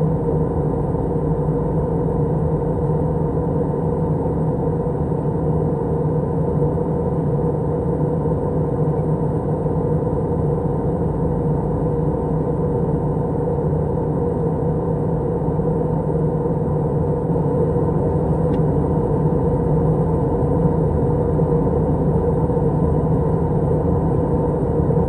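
Steady cabin noise inside an Airbus A320 airliner in flight on descent: the low drone of the engines and rushing air with a humming tone, growing a little louder in the last third.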